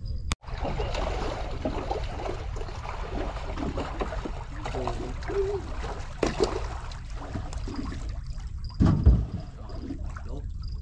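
Water trickling and sloshing close by, with a single thump about nine seconds in.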